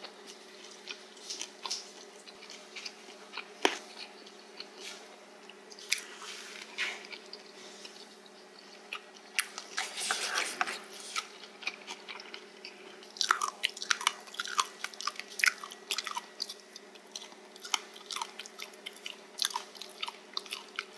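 A person chewing spicy stir-fried pork cartilage, with many small sharp crunches of the gristle; the crunches come thicker in the second half.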